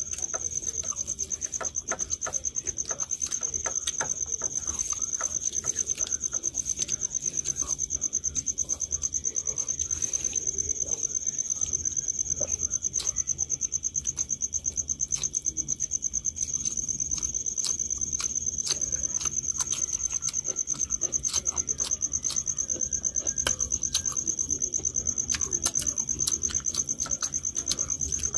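A cricket trilling steadily in one high pitch. Under it are soft clicks and smacks of people eating rice by hand from steel plates, with fingers mixing rice and curry, and chewing.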